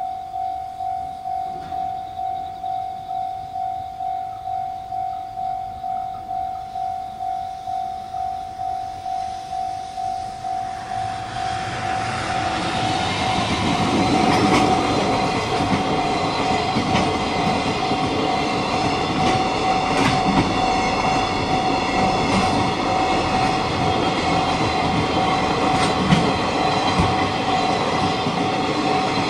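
Japanese level-crossing warning bell ringing about twice a second. About a third of the way in, a train on the Tokaido Main Line comes up and runs over the crossing with a steady rumble and rhythmic wheel clatter over the rail joints, while the bell keeps ringing.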